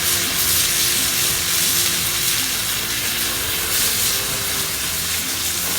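Mutton bhuna frying in a hot pan, a steady sizzle as the nearly done meat cooks down in its separated oil.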